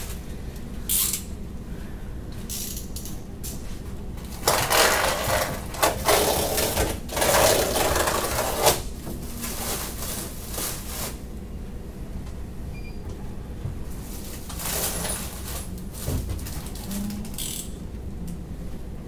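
Rustling and light metallic clattering as plastic-wrapped aluminium extrusion frame parts are handled, loudest in a stretch of several seconds midway, over a steady low room hum.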